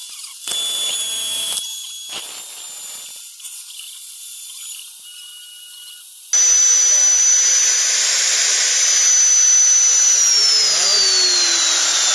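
Homemade CNC router's wood-router spindle cutting a template in a clamped board, heard sped up. About six seconds in it gets suddenly much louder, a dense cutting noise with a high whine, and near the end the whine starts to fall steadily in pitch.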